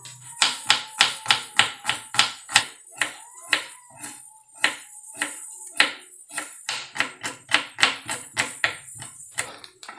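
Kitchen knife slicing shallots on a wooden cutting board: a steady run of sharp knocks, about three a second.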